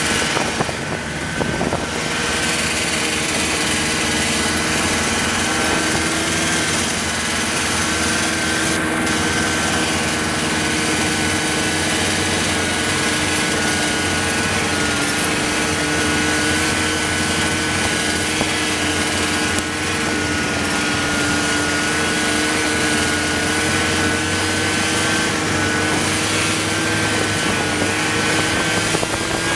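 A motor vehicle's engine running steadily, its pitch wandering slightly and rising a little near the end.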